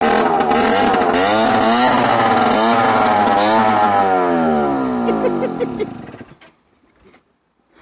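Motorcycle engine running, its pitch rising and falling, then slowing into a few separate beats and cutting out about six seconds in: the engine stalls on a bike that won't start properly.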